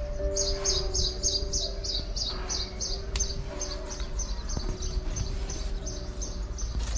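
A small bird chirping over and over in short high chirps, about three a second, over a low steady hum.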